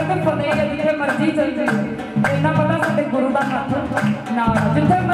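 A woman singing a Punjabi folk song into a microphone, over music with a steady, quick drum beat.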